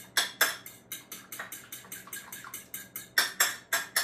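Fork beating egg wash in a small bowl, clicking against the bowl's sides in a steady rhythm of about four strokes a second.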